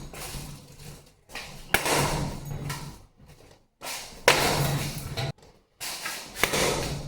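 A ceiling fan being banged and wrenched at its ceiling mount, trying to force it down: three loud bangs about two seconds apart, each followed by rattling that dies away.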